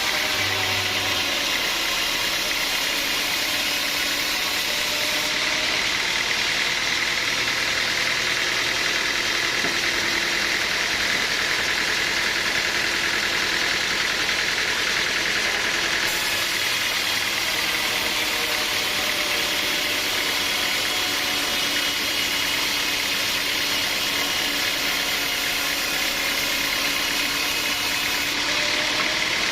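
Sawmill machinery running with a steady, loud mechanical noise and a strong hiss, with no strikes or pauses.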